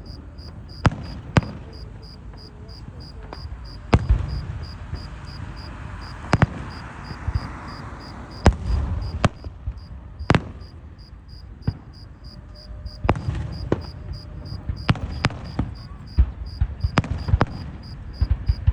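A cricket chirping in a steady, regular pulse, while fireworks and firecrackers go off nearby. More than a dozen sharp bangs come at irregular intervals, some followed by a low rumble.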